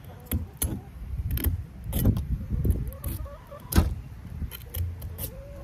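Fillet knife cutting along a triggerfish's belly through its very tough, scaly skin: a run of irregular crunching clicks and scrapes.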